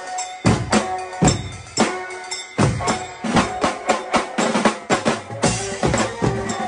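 Street drummers beating a row of tuned tom drums with sticks in a loud, fast pattern, with deep bass-drum thuds underneath; the hits come thicker and faster around the middle.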